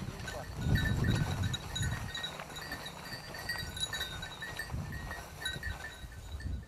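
Small bells tinkling irregularly, over low, uneven thumping rumbles that are loudest about a second in.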